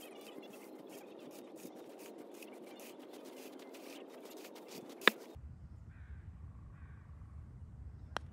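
Golf bunker rake dragged back and forth through sand: a steady gritty scraping full of small clicks, ending with a sharp knock about five seconds in. Near the end, after a quiet pause, comes a single crisp click of a putter striking a golf ball.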